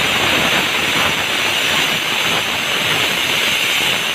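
Pressure cooker whistling: steam blows out past the weight valve on the lid in a loud, steady hiss, the sign that the cooker has come up to pressure.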